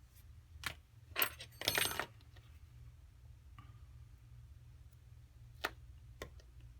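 Small tools and phone parts handled on a workbench: a quick run of light clicks and metallic clinks in the first two seconds, then two single clicks near the end, over a low steady hum.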